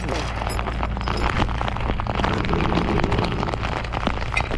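Rain pattering close to the microphone as a dense, steady crackle, over a steady low hum.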